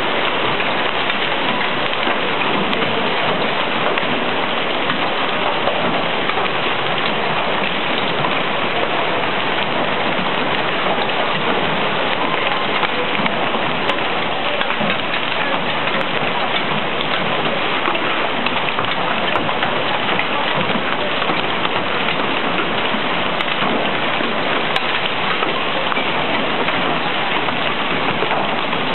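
Hail mixed with rain pelting the street and parked cars: a steady, dense hiss and clatter of countless stones and drops.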